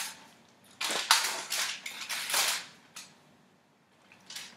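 Aluminium foil crinkling and crackling in several bursts as a large whole fish is shifted and turned over on the sheet, with a few faint crackles near the end.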